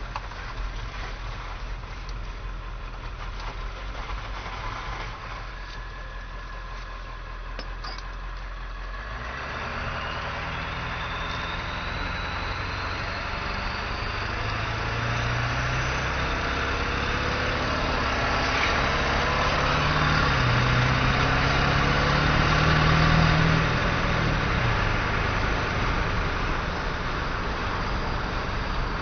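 7.3L PowerStroke V8 turbo diesel with a straight-piped exhaust (no muffler or catalytic converter), idling steadily. About nine seconds in, the engine speed starts to climb slowly and a high turbo whistle rises with it. The sound is loudest a little after twenty seconds, then eases back.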